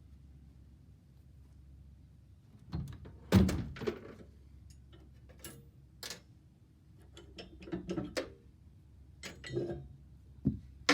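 Irregular metal knocks and clatter as an old rusted Columbian vise is worked loose with tools. The strongest knock comes about three and a half seconds in and another at the very end, after a quiet opening.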